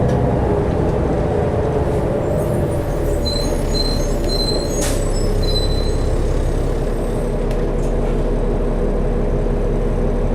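A 2012 New Flyer D60LFR articulated diesel bus under way, heard inside the cabin: steady engine and road noise. A few faint short high tones and a single click come near the middle.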